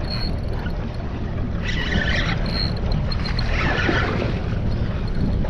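Steady wind and water noise aboard a small fishing boat on open water, with a dull low rumble throughout and a few brief higher sounds about two and four seconds in.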